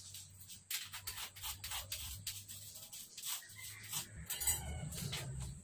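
Scraping and rubbing at dirt and termite tracks on the concrete floor under a kitchen counter: a run of short, irregular strokes.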